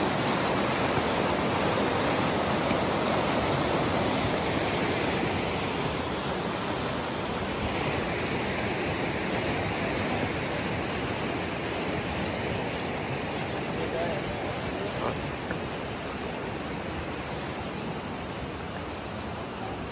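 Fast mountain river rushing: a steady noise of flowing water that slowly grows fainter.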